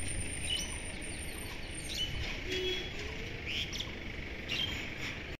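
Birds chirping outdoors: short, high, rising chirps repeated every second or so over a steady background hiss.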